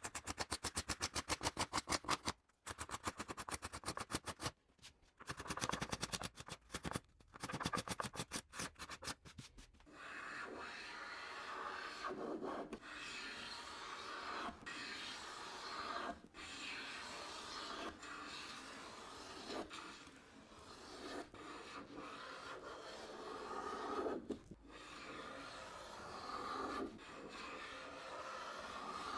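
A fast run of sharp clicks or knocks for about the first ten seconds. Then a Luban hand plane is pushed over a wooden panel in long smoothing strokes, each a steady shaving hiss about two to four seconds long, with short breaks between strokes.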